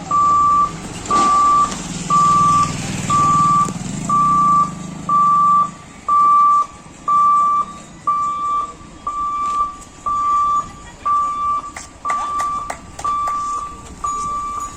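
An electronic warning beeper sounding one high, steady tone about once a second, each beep about half a second long. A low engine hum runs under it for roughly the first six seconds and then fades out.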